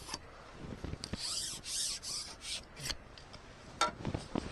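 Rasping, rustling scrapes and a few sharp clicks as a carbon fishing pole is handled while a hooked roach is played in.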